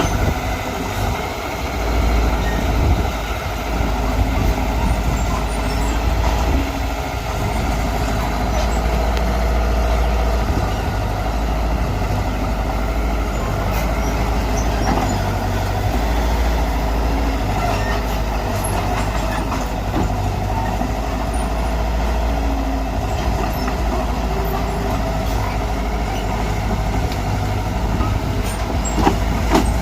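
Mitsubishi BD2G bulldozer's diesel engine running steadily with a deep, even rumble.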